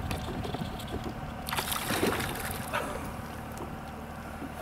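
Lake water lapping against a kayak hull, with wind on the microphone, and a brief rush of noise from about a second and a half in that lasts about a second.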